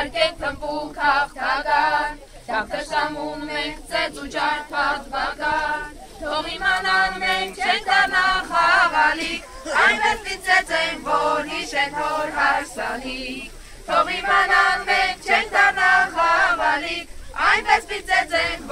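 A group of children singing together without instruments, in sung phrases broken by short pauses for breath.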